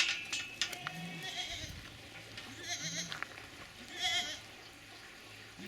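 Goats bleating: three short, wavering calls spaced a second or two apart, with a sharp click right at the start.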